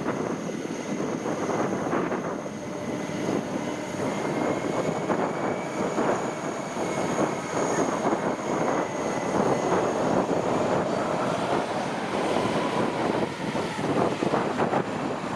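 Boeing 767 twin jet engines at low taxi power as the airliner rolls past, a steady high whine over broad engine noise.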